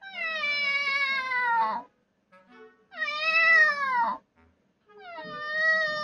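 Three long recorded cat meows played through a tablet's speaker by Alexa, each sliding down in pitch, with short pauses between them. The third is still sounding at the end.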